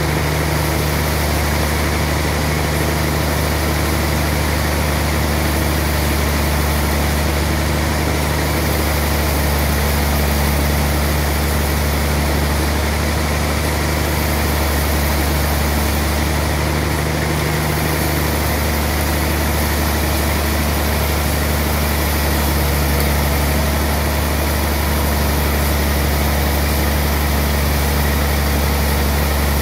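Sawmill machine saw running steadily while it cuts lengthwise through a large slab of trembesi (rain tree) wood: a loud, even low hum with a constant machine drone over it.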